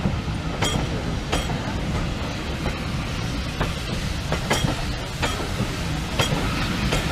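A train rolling through the station: a steady low rumble with irregular sharp clicks as wheels pass over the rail joints.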